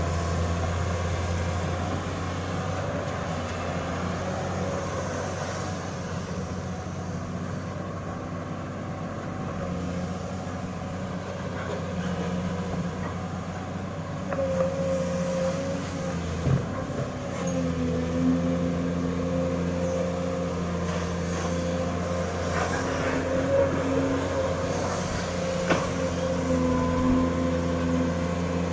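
Sany excavator's diesel engine running steadily with a low hum, higher tones from the hydraulics wavering and rising in strength as the machine works. A few brief knocks, one about halfway through and one near the end.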